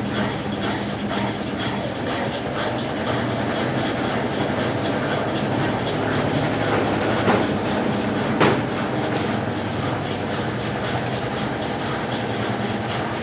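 Consul Facilite 10 kg top-loading washing machine in its wash stage, its Brastemp BWL09 agitator churning the load in water: a steady motor hum with sloshing. Short sharp knocks come about seven and eight and a half seconds in.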